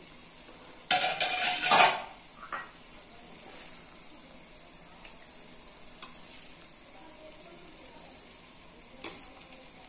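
A metal spatula stirring and scraping cooked lauki and chana dal in a metal kadai, with a few loud scrapes about a second in. After that the cooked mixture gives a low steady sizzle, with a few light clinks of the spatula.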